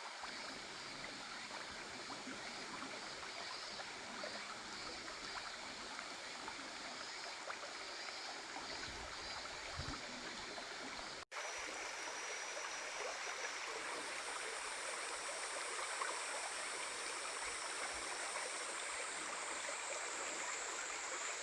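Stream flowing steadily over rocks. After a sudden cut about 11 seconds in, a steady high-pitched insect buzz joins the water.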